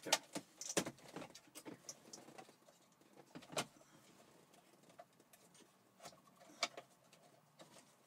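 Scattered light clicks and knocks of plastic and metal as the car's factory radio unit is pulled out of the dash and its wiring connectors handled, busiest in the first two seconds.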